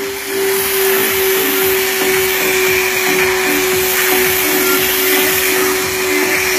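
Steam car wash machine jetting steam through a cloth-wrapped nozzle against a car's headliner: a steady hiss with a steady hum.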